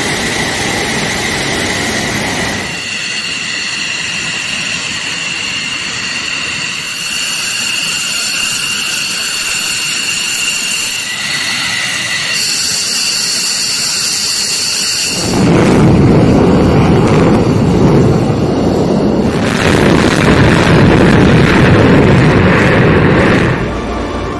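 F-15E Strike Eagle's twin jet engines: a high-pitched turbine whine with several steady tones while the jet taxis. About fifteen seconds in, a much louder, deep jet roar takes over as it takes off, then drops away near the end.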